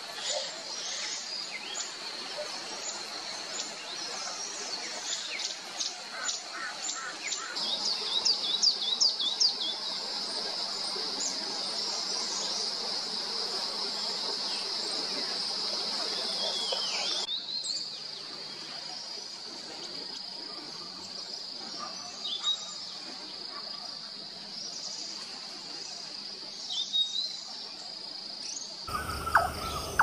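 A steady high-pitched insect drone with scattered short bird chirps and calls over it. The background changes abruptly about 17 seconds in and again near the end.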